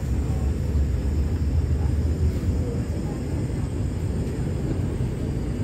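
Steady low rumble of an MTR Kwun Tong Line C-Train, heard from inside the passenger car.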